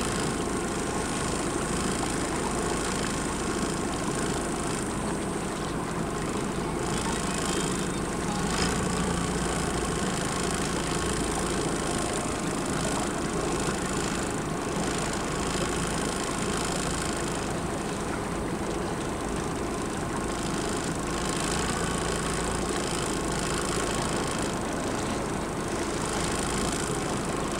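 Speedboat motor running steadily, heard from aboard the moving boat.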